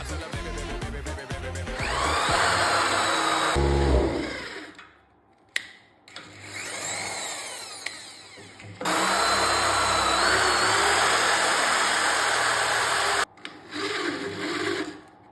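Power drill running in a series of short, abruptly cut segments, its whine rising as it spins up about two seconds in, with background music underneath.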